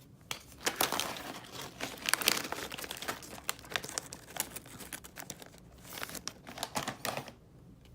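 Packaging crinkling and crackling as it is handled: a Calbee potato chip bag and its attached card packet being worked open to pull out the cards. It starts just after the beginning and stops shortly before the end.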